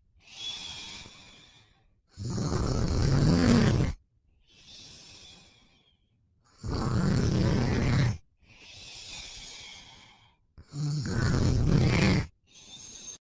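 A man snoring: three loud snores about every four seconds, alternating with quieter breaths, before the sound stops abruptly.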